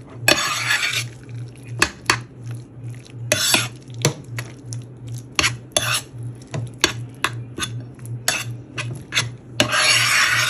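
A heavy metal cooking spoon stirs thick, creamy chicken-and-spinach dip in a glazed oven dish, giving repeated sharp clinks and scrapes against the dish. Longer scraping strokes come about half a second in and again near the end. A steady low hum runs underneath.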